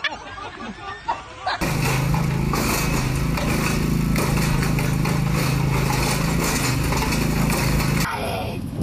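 Small engine of a ride-on machine running steadily and loudly, a constant low hum with a fast, even pulse. It starts abruptly about a second and a half in and stops abruptly near the end.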